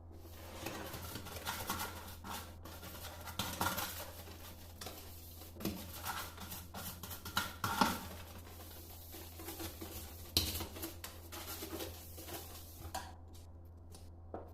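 Irregular clinks, knocks and scrapes of dishwasher parts being handled and cleaned by hand, over a steady low hum.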